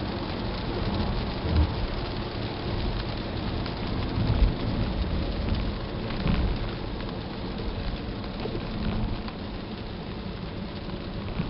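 Cabin noise of a moving car picked up by a Star Eye M868 dashcam's built-in microphone: a steady road and engine rumble with a few low thumps, the loudest about four and a half seconds in. No button rattle comes through, since the camera's loose buttons, the cause of the earlier noise, are taped down.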